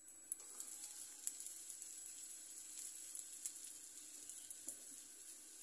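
Faint sizzling of börek frying in a pan: yufka pastry soaked in an egg, milk and soda sauce with butter, with small scattered crackles.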